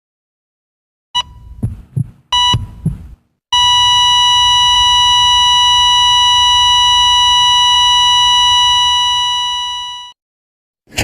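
Heart-monitor sound effect: a few short beeps over low heartbeat thumps, then a long unbroken flatline tone that fades out near the end, the sound of a heart stopping.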